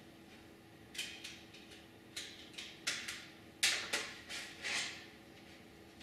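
Speaker cables and their plugs being handled at the back of an AV receiver: a run of short rustles, scrapes and clicks, the loudest about three and a half seconds in.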